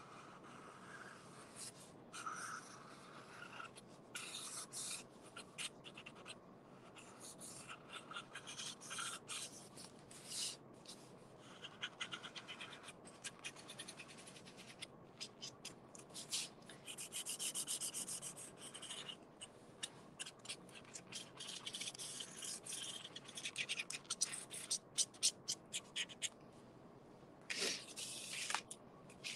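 Black felt-tip marker drawn over corrugated cardboard in many short, scratchy strokes with brief pauses between them. Near the end the cardboard is slid across the table.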